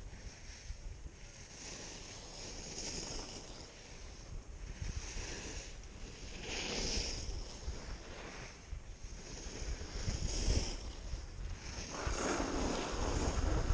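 Skis scraping and hissing over packed snow through a series of turns, a swell of hiss every second or two, with wind buffeting the microphone, stronger near the end.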